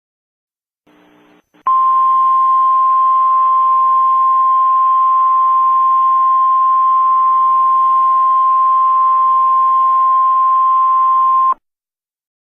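A steady single-pitch electronic broadcast tone just above 1 kHz starts about two seconds in, holds level for about ten seconds over a hiss, and cuts off sharply. A brief patch of faint hiss and hum comes just before it.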